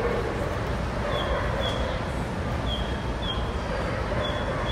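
Steady background din of a large exhibition hall: a constant low rumble with general crowd noise. Faint short high squeaks come in pairs about every second and a half.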